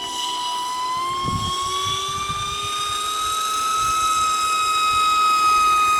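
Small electric motor of a homemade toy whining steadily, its pitch rising slightly in the first few seconds and then holding, with a low thump about a second in.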